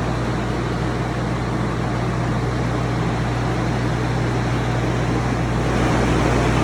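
Large drying fans set out after a kitchen flood running: a loud, steady rush of air over a low hum, growing a little louder near the end.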